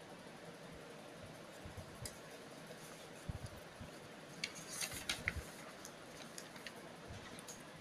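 Paper pages of a printed exam booklet being handled and turned: a cluster of short crackling rustles and clicks from about three to five and a half seconds in, over a steady low hiss.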